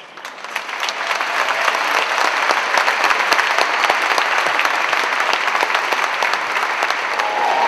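Audience applauding at the end of a song, starting suddenly and swelling over the first second into steady clapping.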